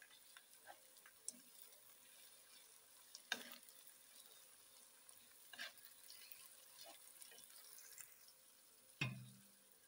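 A wooden spatula stirring chopped onions and tomatoes in oil in a nonstick kadhai, faint scraping with a few light knocks over a soft frying sizzle. A louder thump comes near the end.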